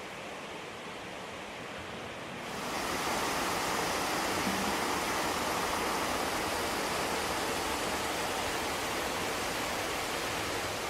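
Steady rush of flowing water, stepping up louder and brighter about two and a half seconds in.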